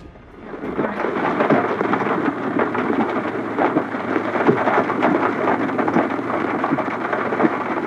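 Heavy rain pelting down hard: a dense, steady patter of many sharp drop hits that swells up over the first second.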